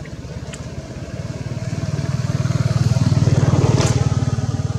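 Engine of a passing motor vehicle, a low steady hum that grows louder to a peak about three and a half seconds in, then fades a little. A short sharp sound stands out near the loudest point.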